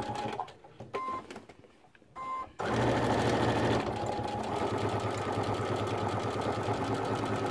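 Electric sewing machine sewing a straight stitch around the edge of a fabric applique. It runs, stops after about half a second, gives two short bursts of a few stitches, then runs steadily from about two and a half seconds in.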